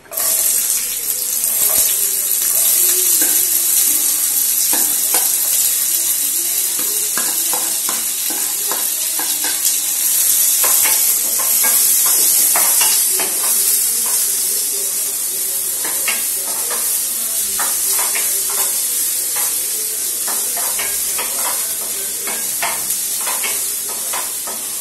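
Chopped onions hitting hot oil in a nonstick kadai, starting a sudden loud sizzle that carries on as a steady hiss while they sauté. A wooden spatula stirs them, with frequent scrapes and knocks against the pan that grow more frequent after about ten seconds.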